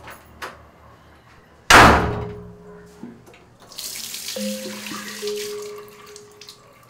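A door slams shut about two seconds in. Then a tap runs into a bathroom washbasin for about three seconds.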